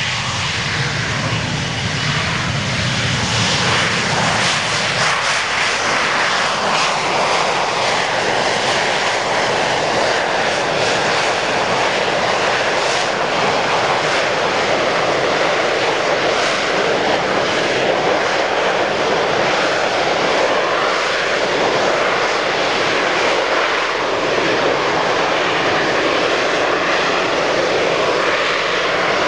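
Harrier GR9A jump jet's Rolls-Royce Pegasus vectored-thrust turbofan running at high power while the jet hovers. It is a loud, steady jet roar, with a deeper rumble in the first few seconds.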